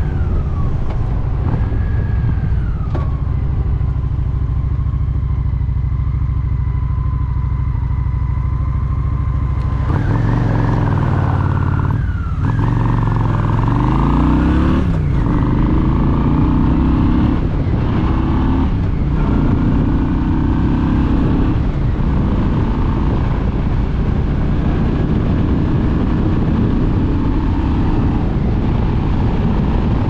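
Honda Shadow 750 ACE's V-twin engine running at road speed, heard from the rider's seat with wind rushing past. About ten seconds in the engine pulls harder and climbs in pitch, dipping briefly twice, then settles back to a steady cruise.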